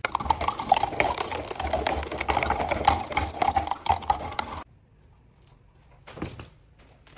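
Stick stirring thick resin in a metal tin, a rapid run of scraping and clicking against the tin's wall that stops suddenly about four and a half seconds in. Then only a few faint knocks.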